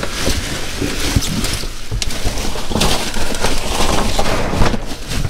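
Cardboard shoe boxes being handled and opened by gloved hands: continuous rustling and scraping of cardboard and paper, broken by several short knocks.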